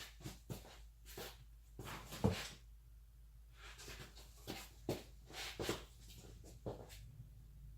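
Fine sandpaper rubbed by hand on a metal fuel-line fitting in short, irregular scratchy strokes with a few light clicks, cleaning off corrosion so the sealing washer will seat.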